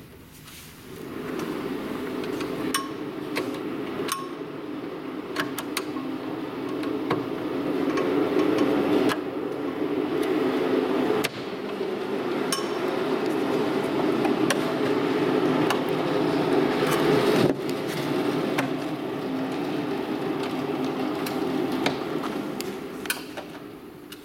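A steady droning hum, with scattered sharp clicks and taps of tools and plastic cover parts being handled on a treadmill.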